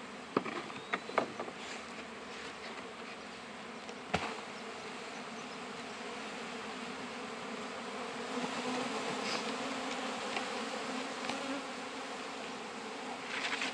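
Honeybees buzzing thickly around an open hive as a frame of nurse bees is shaken out for a mite wash. A steady hum, with a single sharp knock about four seconds in.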